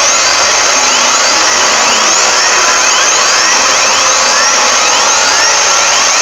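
Mock emergency-alert alarm: a loud, harsh, distorted wash of noise threaded with many overlapping rising sweeps, roughly two a second, repeating steadily.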